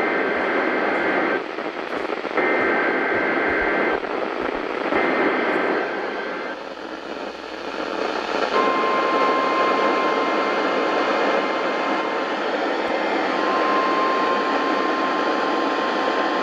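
NOAA Weather Radio emergency alert coming through a Sangean CL100 radio's speaker over steady static hiss. First come three bursts of the SAME digital header, a buzzing two-tone warble each about a second and a half long with a second's gap between them. After a short pause comes the long steady 1050 Hz warning alarm tone, briefly broken about halfway, that announces the tornado watch message to follow.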